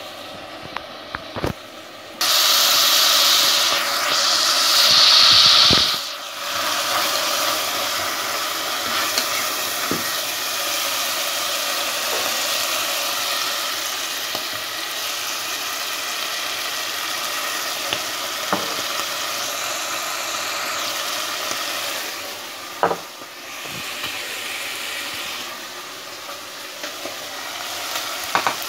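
Ground meat sizzling as it fries in a pot, starting suddenly and loudly about two seconds in and settling to a steady sizzle after about six seconds. A few short knocks of a wooden spoon against the pot as it is stirred.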